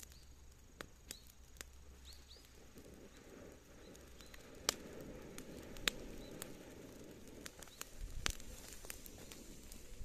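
A freshly lit heap of dry cut weeds starting to burn: scattered sharp crackling pops over a soft rushing hiss that swells in the middle as the fire catches.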